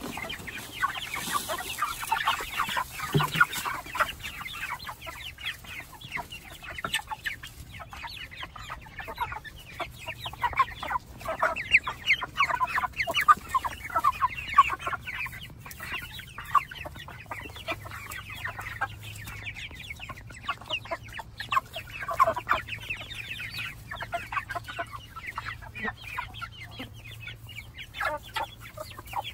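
A flock of white broiler chickens and red hens clucking while pecking at feed, many short calls overlapping in a continuous run.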